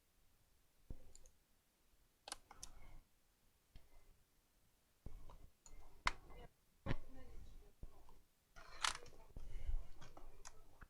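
Scattered clicks and light knocks of small tools and the plastic case and parts of a laptop being handled while it is taken apart, with a short rustling scrape about nine seconds in.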